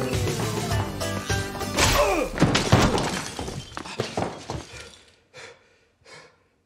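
Film score with a falling, sliding run, then a crash of breaking and thuds as a man falls at a staircase. The crash dies away, leaving a couple of short soft sounds near the end.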